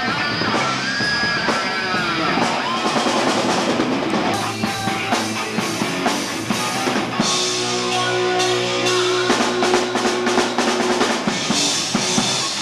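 Live rock band playing loud, with electric guitar, bass and drum kit. Guitar notes bend up and down in the first few seconds. From about four seconds in, quick drum hits come thick and fast under held guitar and bass notes.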